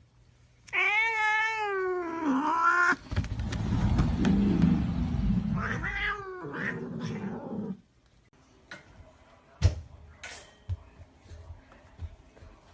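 A cat yowling: a long, wavering, drawn-out call starting about a second in, followed by a low rumbling noise and a second, shorter yowl about six seconds in. After that there are only a few faint clicks.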